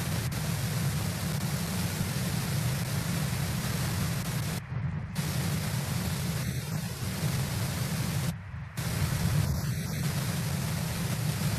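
Steady hiss over a low rumble from an outdoor bald eagle nest camera's microphone, cutting out briefly twice, a little before halfway and again about three-quarters through.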